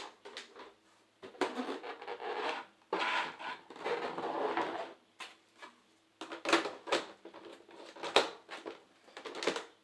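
Hard plastic Beyblade stadium being handled and slid on a tabletop: scraping and rubbing for a few seconds, then several sharp plastic knocks.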